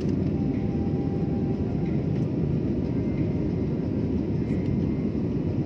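Steady low rumble of jet engines and airflow heard inside an airliner's cabin.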